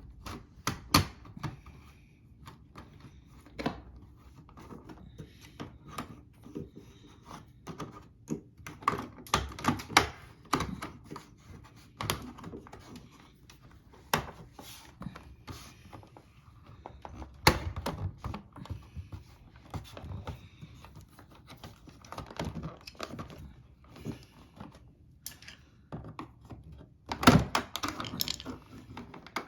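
Irregular clicks, taps and knocks of hand work on the fridge/freezer door's self-closing hardware, with a louder knock about halfway through and a flurry of knocks near the end.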